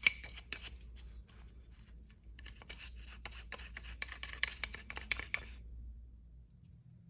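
Rapid back-and-forth scrubbing strokes on a bronze censer's surface. The strokes come several a second, ease off briefly about two seconds in, then pick up again and stop a little before the end.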